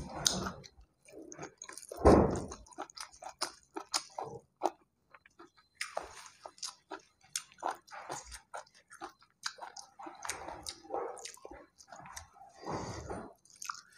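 Close-miked chewing of rice and chicken gizzards, with many small wet clicks and lip smacks as the eater works each mouthful, and one louder thump about two seconds in.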